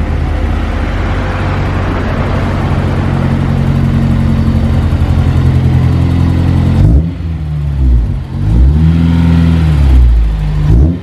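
Honda S2000's inline-four engine idling steadily through a freshly fitted MagnaFlow rear muffler and twin tailpipes while it warms up, then revved in a few quick blips from about seven seconds in, the pitch rising and falling each time.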